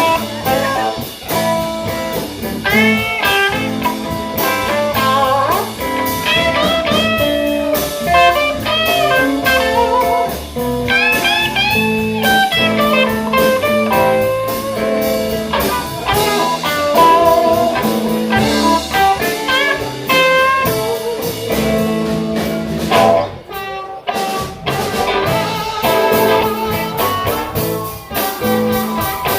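Live blues band playing an instrumental passage of a slow blues shuffle: a lead line full of bent notes over guitar, bass and drums, with a brief break about three-quarters of the way through before the band comes back in.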